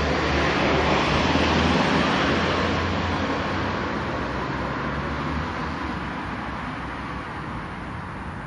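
Traffic noise from a motor vehicle passing, with a low engine hum, loudest about a second or two in and then slowly fading away.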